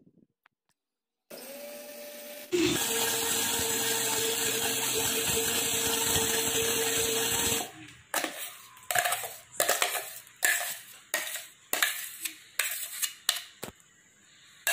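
Electric mixer grinder with a stainless-steel jar grinding soaked urad dal into batter: it runs quieter for about a second, then loud and steady for about five seconds before stopping. Then a steel spoon scrapes and knocks against the steel jar and bowl over and over as the batter is scooped out.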